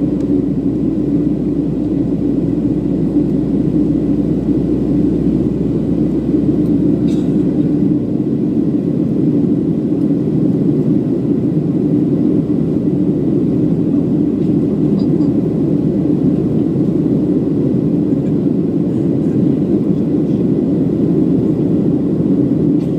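Cabin noise inside a Boeing 737-700 in flight: its CFM56 turbofans and the airflow past the fuselage make a steady, low drone that does not change.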